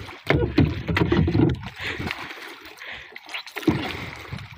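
Sea water splashing and sloshing against the hull of a small wooden outrigger canoe as an octopus is hauled from the water and wrestled aboard. It comes in uneven surges, the strongest in the first second and a half and another near the end.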